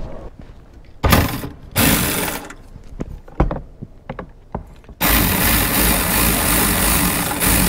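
ACDelco cordless electric ratchet spinning a socket to back out a hood latch bolt: two short bursts, then a longer run of nearly three seconds starting about five seconds in.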